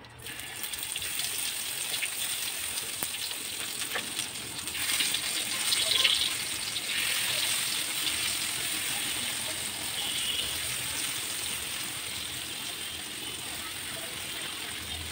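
Omelette frying in hot oil in a steel wok-style pan on a gas stove, sizzling steadily. The sizzle starts abruptly and is loudest about five to six seconds in.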